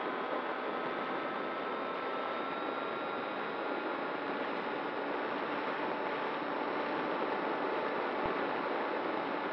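Model plane in flight, heard from a camera on board: its motor and propeller make a steady whine of several high tones over a constant rush of air past the microphone.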